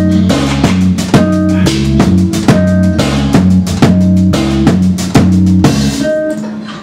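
A band playing at a sound check: a drum kit beat over held low pitched notes, the music stopping about six seconds in and ringing out.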